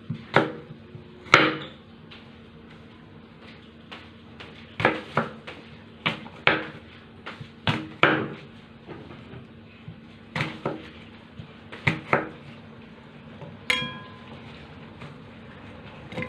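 Kitchen knife chopping an apple on a wooden cutting board: about a dozen irregular sharp knocks of the blade meeting the board, often two close together. One ringing clink near the end.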